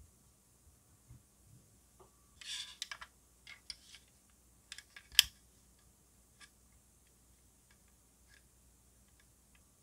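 Small clicks and rubbing of hard plastic as a tyred wheel is pushed onto the body of an Aoshima plastic model car kit, with a short rustle about two and a half seconds in and one sharp click about five seconds in, followed by a few faint ticks.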